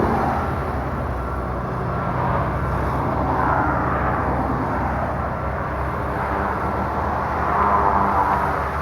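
Bulldozer's diesel engine running steadily, its sound swelling and easing as it works, loudest near the end.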